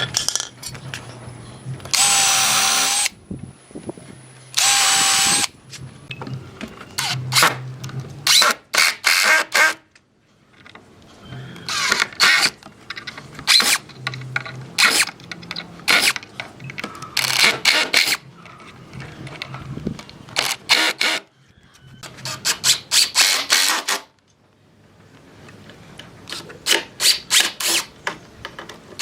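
Workshop power tool at work: two short whining bursts, then clusters of rapid clattering and knocking with brief pauses between them.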